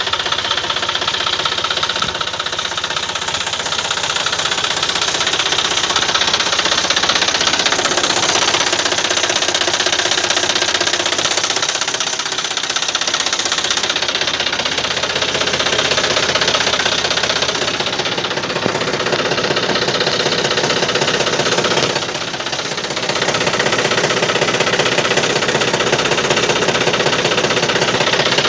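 John Deere 5050D tractor's three-cylinder diesel engine running steadily, its level dipping briefly about three quarters of the way through.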